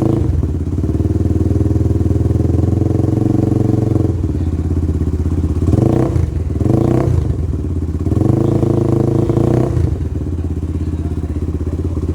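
Benelli Leoncino 250's single-cylinder engine being revved while standing: held at raised revs, dropping back, then two quick throttle blips, another held rev, and settling back to idle near the end.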